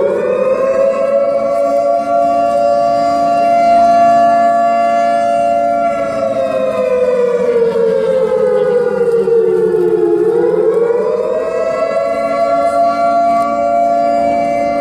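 Air-raid-style siren sounding as a scramble alarm. Its tone climbs to a steady pitch, sags slowly over about four seconds midway, then rises back up and holds.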